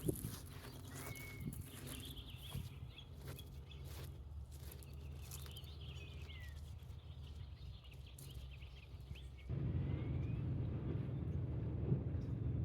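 Beach ambience with birds chirping over a steady low rumble, and scattered small clicks. About nine and a half seconds in it changes abruptly to a louder, duller low rumble.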